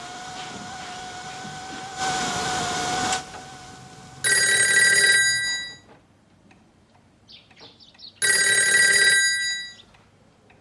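A telephone ringing: two electronic rings of about a second and a half each, roughly four seconds apart, starting about four seconds in. Before them a steady hum runs, with a short rush of noise about two seconds in.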